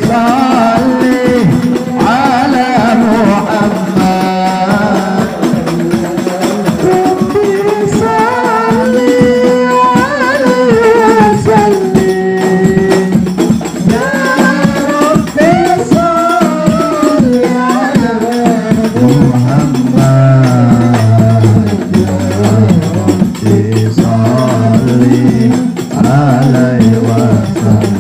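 Hadrah ensemble of rebana frame drums and a darbuka playing a steady rhythm under a long, melismatic sung line of sholawat, with no clear words. From about two-thirds of the way through, a low pulse joins in under it.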